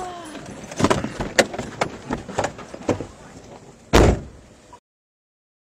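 Knocks and clicks inside a car just after a collision, scattered over the first three seconds, then one loud thump about four seconds in; the sound cuts off shortly after.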